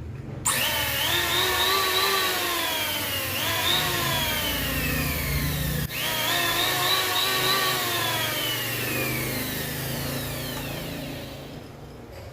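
Electric power tool motor switched on three times: each time it spins up quickly to a whine, then winds down slowly as it coasts, and the last run fades out near the end. This is typical of a tool being run as a load on a homemade inverter.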